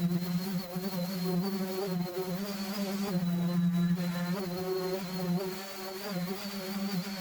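Electric power sander running steadily on a metal toolbox, a buzzing hum with a thin high whine whose pitch wavers slightly as pressure on the pad changes.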